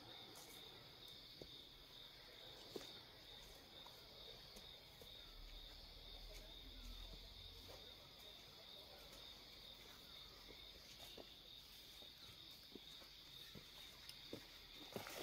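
Insects chirring: a steady, faint, high-pitched drone, with a few soft clicks over it.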